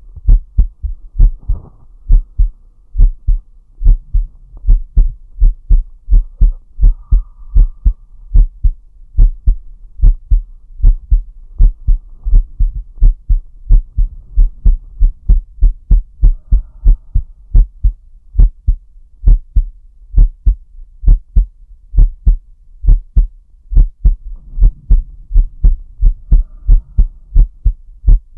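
A man's heartbeat picked up close on a microphone: a regular lub-dub of deep, soft thumps that goes on without a break.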